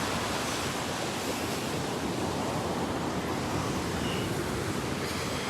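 Ocean surf rushing and washing onto the beach, a steady noise with no distinct breaks.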